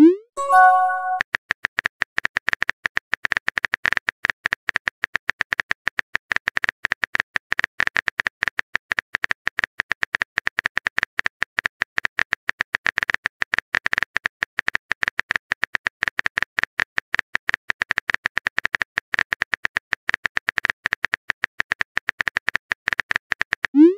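Simulated keyboard typing from a texting-story app: rapid, steady clicking. About half a second in, a rising swoop and a short chime of a few notes mark a message arriving, and another swoop comes near the end.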